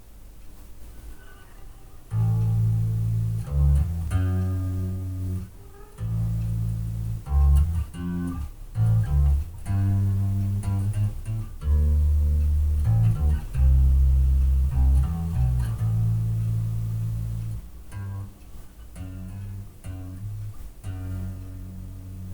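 Electric bass guitar played through a bass amp, picking out a half-remembered bass line: held low notes in short phrases that break off and start again, beginning about two seconds in.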